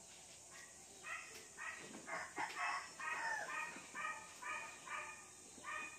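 A chicken calling: a run of short, repeated notes, about two a second, starting about a second in.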